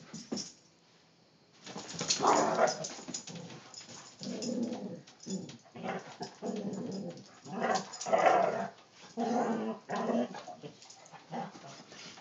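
Two dogs play-fighting, growling in repeated short bouts that start about two seconds in.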